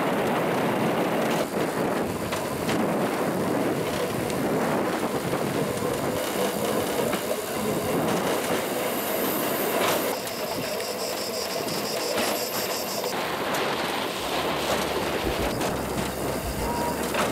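Steel wheels of a towed vélorail (rail bike) running along the rails: a steady rolling rumble and rattle with occasional clicks.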